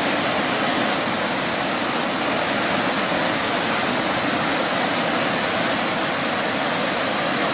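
Steady rushing of a waterfall, Georgiana Falls running high and flowing hard with rain and wet-snow runoff.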